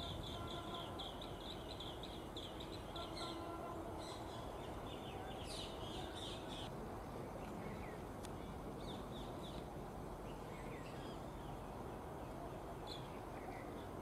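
Green bee-eaters calling: quick series of high, trilled chirps, dense in the first seven seconds and scattered after that, over a steady background rumble. A steady low hum runs under the calls for the first three and a half seconds.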